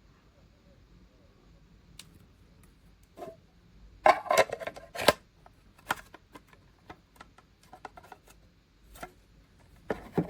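Clicks and plastic knocks from handling a small device: a quick loud cluster about four seconds in, scattered single clicks after it, and a couple more knocks near the end.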